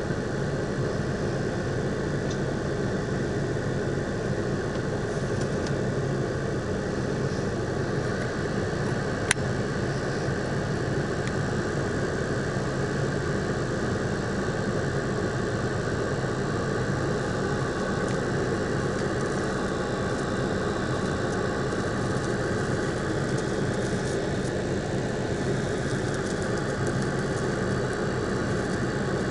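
An engine running steadily, with a single sharp click about nine seconds in.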